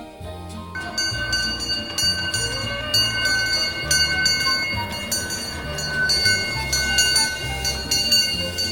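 15-inch-gauge miniature train running on the rails, its wheels squealing with several steady high tones from about a second in. Background music with a stepping bass line plays underneath.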